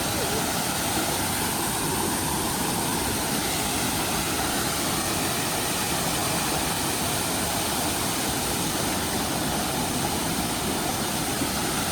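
Steady roar of Puliyaruvi waterfall running in heavy flow, swollen by a day's rain.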